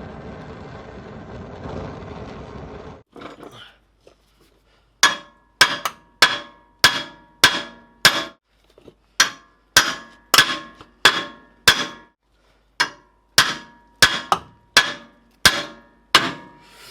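A steady hiss of a heating torch for about three seconds stops suddenly. Then a hammer drives a brass rod against the seized torsion key of a Hummer H2: about twenty sharp, ringing metal blows, nearly two a second.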